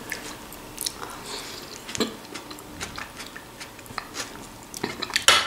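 A person chewing a mouthful of fresh vegetable salad (cucumber and tomato with mayonnaise), with small soft mouth clicks. One short, sharp tap near the end.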